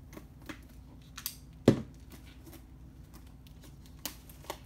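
Hands working at a Blu-ray box set's case to open it: fingernails clicking and picking at the seal, with a sharp knock about a second and a half in.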